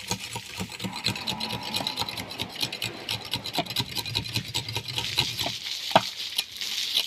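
A knife blade scraping the rind off a sugarcane stalk in quick, repeated rasping strokes, with a sharp click about six seconds in.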